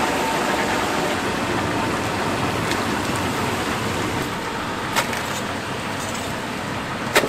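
Battered whole chickens deep-frying in a large cauldron of hot oil: a steady, dense sizzle and bubbling. Two sharp clicks cut through it, one about five seconds in and a louder one near the end.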